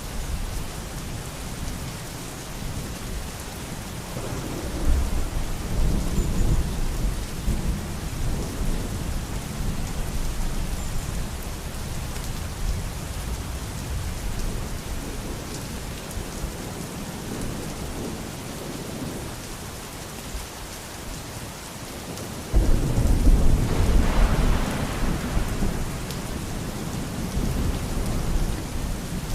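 Steady rain falling, with rolling thunder: a low rumble swells up about five seconds in and fades, and a louder peal breaks in suddenly about three-quarters of the way through before rumbling away.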